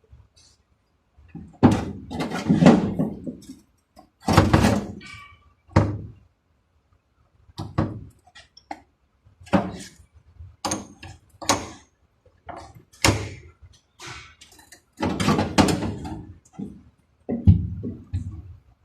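Irregular knocks, thuds and clattering, some with a short metallic ring: hands-on auto body repair work on a car.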